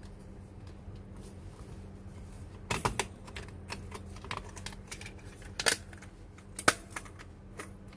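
Plastic cover of a Nakajima AX-150 electronic typewriter's key panel being handled and snapped into place: a quick cluster of sharp plastic clicks about three seconds in, then single sharp clicks near six and seven seconds and at the end, with lighter ticks between, over a faint steady hum.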